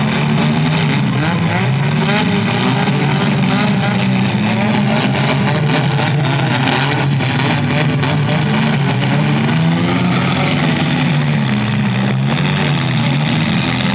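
Several compact-car engines revving and dropping back at the same time during a demolition derby heat, with scattered sharp bangs of cars hitting each other.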